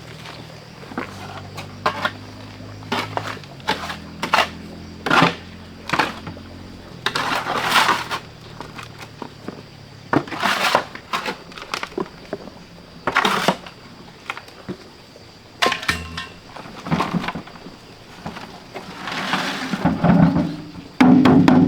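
A string of irregular knocks and clatters, some followed by short scraping or rustling, over background music.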